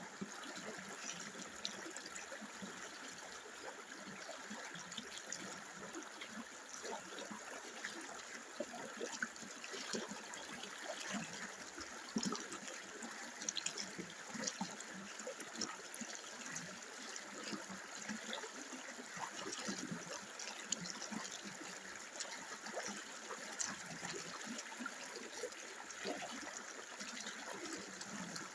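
A river or stream flowing steadily, with constant trickling and small splashes of water over stones.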